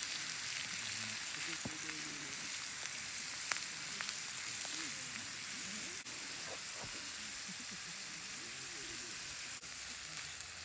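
Chopped vegetables frying in a cast-iron skillet over a charcoal grill, with a steady sizzle. Occasional light clicks come as chopsticks stir the food against the pan.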